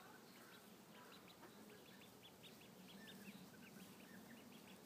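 A group of ducklings peeping faintly: a steady stream of short, high peeps, several a second, overlapping one another.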